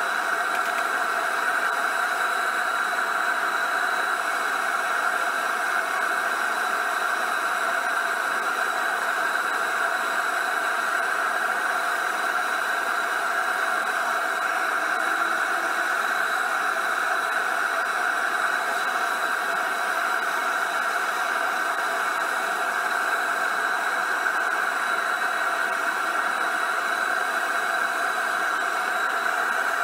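Single burner of a homemade propane forge running at 7 psi, a steady even hiss with a faint high whistle, as it heats a steel bar toward forging temperature.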